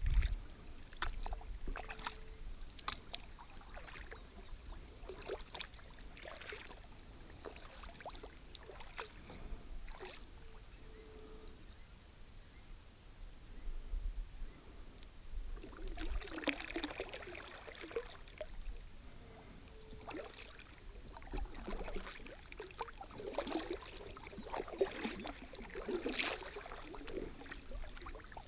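Kayak paddle dipping and splashing in calm water in irregular strokes, busier about halfway through and again near the end.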